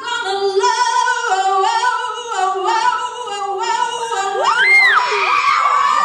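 Teenage female vocalist belting a soul ballad into a microphone, holding long notes that step up and down in pitch, with a quick high vocal swoop up and back down a little over four seconds in.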